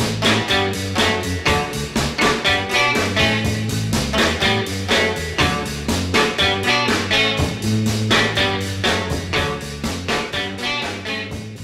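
Background music with a steady beat, starting to fade out near the end.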